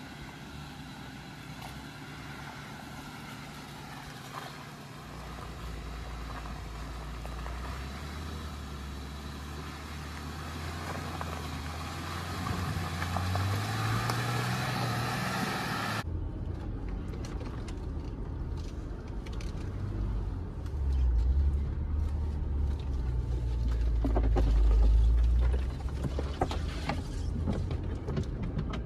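Jeep Gladiator pickup driving, with steady engine and road noise; the engine note rises as it speeds up a little past halfway. About two-thirds in the sound changes abruptly to a deeper rumble with scattered knocks and rattles.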